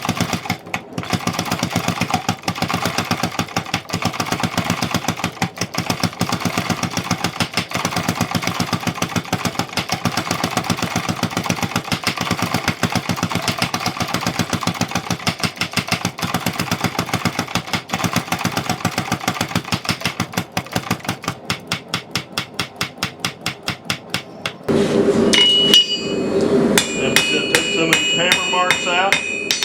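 Fast, evenly spaced hammer blows forging steel at the anvil, several a second, while an end of the bar is drawn out to a taper. About 25 seconds in, the strikes turn louder and the anvil rings with clear metallic tones after each blow.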